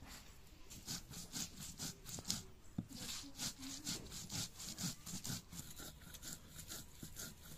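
Stone grinding: a hand-held muller rolled and rubbed back and forth over a flat stone slab (sil-nora), crushing seeds in a rapid, steady rhythm of scraping strokes that starts about a second in.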